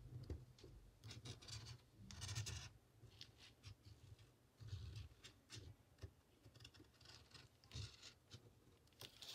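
Faint scratching of a felt-tip marker drawn across fabric in short, irregular strokes as it traces around a cardboard template.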